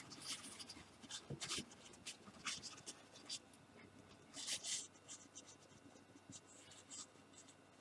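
Faint rustling and scraping as a large plastic model-kit sprue is handled and turned over, with short irregular rubs and a louder scrape about four and a half seconds in.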